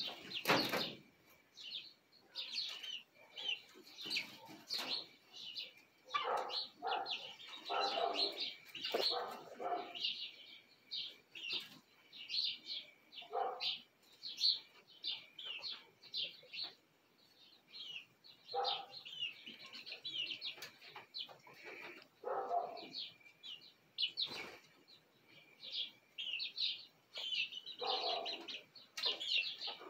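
Young chickens on a night roost peeping: a steady stream of short, high chirps, broken now and then by lower clucking calls. There is a brief flutter of wings about half a second in.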